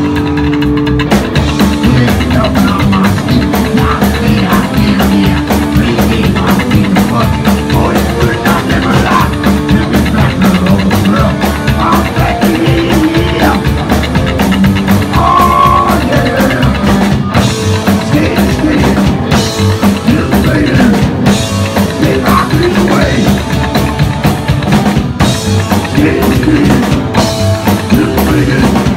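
Live psychobilly band playing loudly: drum kit beating steadily under electric guitar and vocals.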